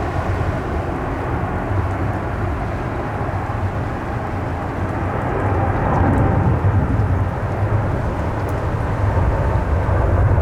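Jet engine roar from a heavy airliner taking off, a steady low rumble that swells about halfway through and again near the end, mixed with gusty wind buffeting the microphone.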